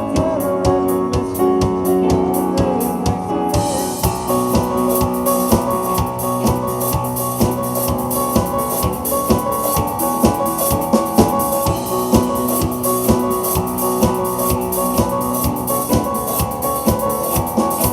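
Instrumental break of a pop-rock band song: piano or keyboard chords over a steady drum-kit beat, no singing. The cymbals grow brighter about three and a half seconds in.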